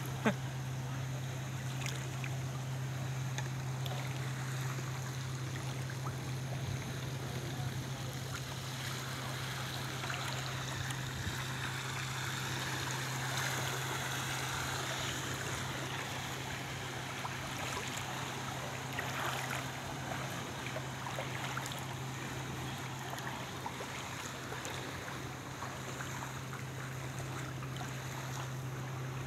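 Vehicle wading through floodwater: a steady rush and slosh of water, with a steady low hum underneath.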